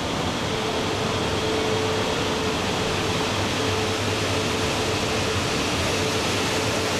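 Steady rushing hum of machinery on a shinkansen station platform, even in level throughout, with a faint held tone over it.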